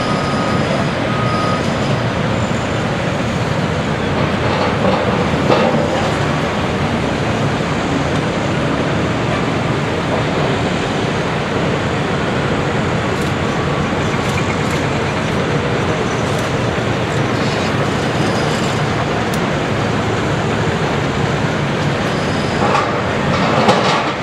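Cat 385BL hydraulic excavator running steadily under load, its diesel engine giving a dense, even rumble, with a knock about five seconds in and a few clanks near the end.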